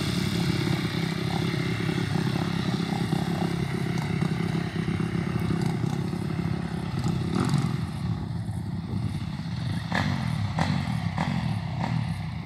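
Kawasaki 450 dirt bike's single-cylinder four-stroke engine running under load as it climbs a steep dirt hill, with a few sharp clacks about ten seconds in.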